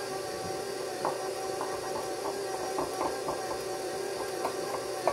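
Electric stand mixer running steadily while it beats cookie dough, its motor giving an even hum, with light irregular clicks on top.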